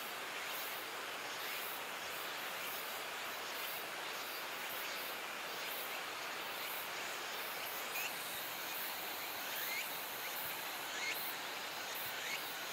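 Steady outdoor ambience of insects droning, with a few faint, short bird chirps in the second half.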